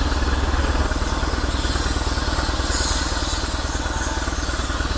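Boat engine running steadily, with a rapid, even low pulse.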